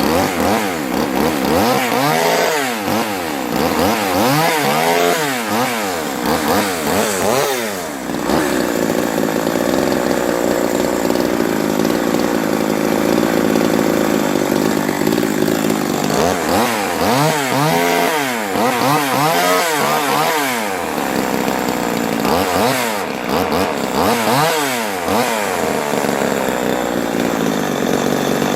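Remington Mighty Mite 500's 38cc two-stroke chainsaw engine running, revved up and down repeatedly for the first several seconds. It settles to a steady run for a while, then is revved several more times in the second half.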